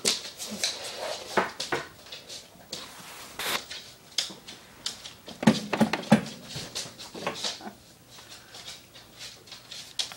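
Yellow Labrador puppy playing right at the phone: irregular scuffling, rustling and knocking, with the loudest run of bumps around six seconds in as its face presses against the phone.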